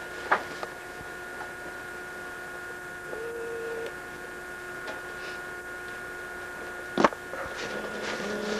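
Faint steady electrical hum with hiss, broken by a short sharp click shortly after the start and a louder click about seven seconds in, and a brief low tone a little past three seconds.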